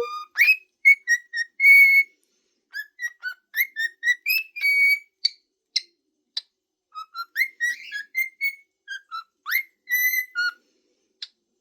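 Cockatiels whistling: a run of short whistled notes, quick upward sweeps and a few held notes, in chirpy phrases with brief pauses between them.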